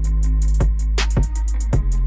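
Background music with a steady drum beat and deep bass notes.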